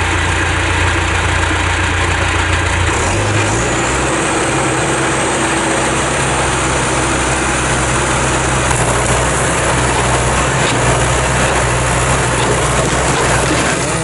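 John Deere 310SE backhoe's turbo diesel engine running steadily, its pitch stepping up about three and a half seconds in as it is throttled up under hydraulic load to push over a pine tree with the boom. A faint thin high whine runs above it from about the same point.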